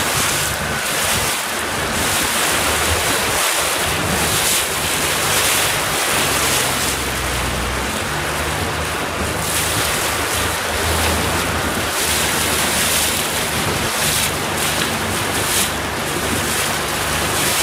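Wind buffeting the microphone and choppy water rushing past a moving boat, with a low steady hum underneath.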